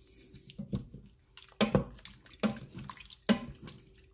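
Wooden spoon stirring thick, wet chili of shredded chicken and beans in a stainless steel pot: a run of irregular squelching strokes, the spoon now and then scraping or knocking the pot. The strongest strokes come about a second and a half in and again a little after three seconds.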